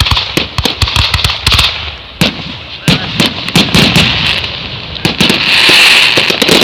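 Fireworks going off: a rapid, irregular run of sharp bangs, some overlapping, with a dense crackling hiss swelling about five seconds in.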